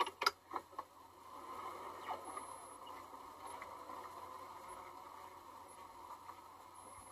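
Steady noise of a slowly moving car heard from inside its cabin, engine and tyres, with a few clicks in the first second.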